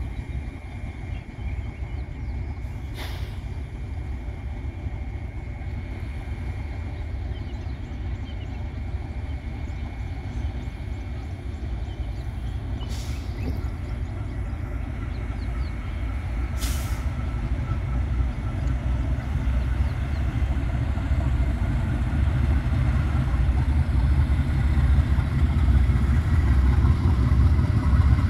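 Transnet class 43 and 44 GE diesel-electric locomotives pulling away with a heavy magnetite train, their engines rumbling low and growing steadily louder as they come closer. Three brief hisses cut in, one near the start and two around the middle.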